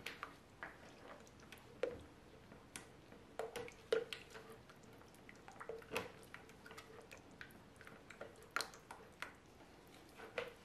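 Silicone spatula stirring thick raw cold-process soap batter in a plastic jug: faint wet squelching with irregular light clicks as the spatula knocks against the jug's sides.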